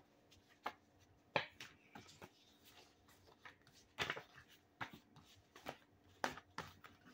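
A deck of reading cards being shuffled and handled: faint, sharp flicks and slaps of the cards at irregular intervals, the louder ones about a second and a half in and about four seconds in.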